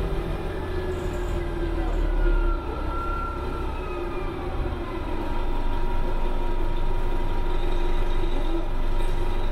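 1995 New Flyer D40LF diesel transit bus running under way: a steady low engine rumble with a drivetrain whine that slowly rises and falls in pitch, getting somewhat louder about halfway through.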